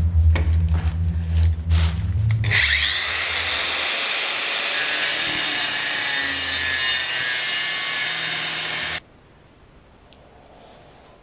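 Angle grinder with a cutting disc running, then biting into steel angle iron held in a vise: a loud, steady cutting noise that starts with a brief rising whine about two and a half seconds in and lasts about six seconds before cutting off abruptly.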